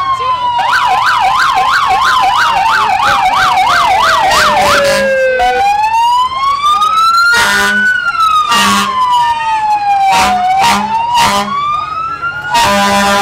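Emergency vehicle sirens passing close by. One siren wails slowly, falling, rising, falling and rising again, while a second siren yelps rapidly for the first few seconds. Short blasts of a deep horn cut in several times in the second half, and a long horn blast begins near the end.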